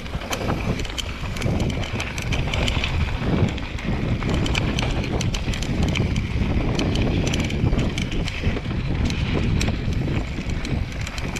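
Mountain bike riding fast down a dirt singletrack: the tyres rumble over the ground while the bike rattles and clicks over the bumps, with some wind on the microphone.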